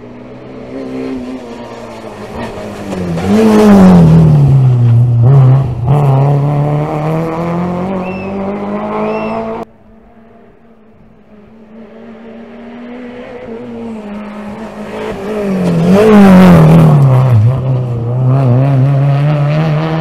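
Two rally cars at racing speed passing one after the other. Each is heard approaching, its engine note dropping as it goes by close, then climbing as it accelerates away. The first pass cuts off abruptly about ten seconds in, and the second begins soon after.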